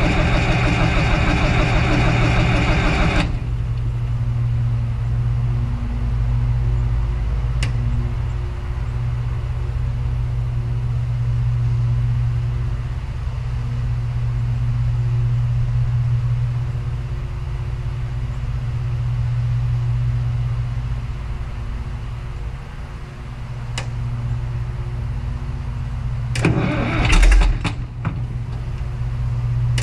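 An engine running steadily at a low, even pitch. A louder, rougher engine sound cuts off about three seconds in, and a few loud noisy bursts come near the end.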